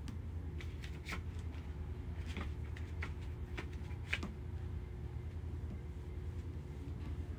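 Small scratchy taps and clicks from a kitten's paws and claws batting a thin rope across a stone-tiled floor, scattered irregularly with the sharpest about four seconds in. A steady low hum runs underneath.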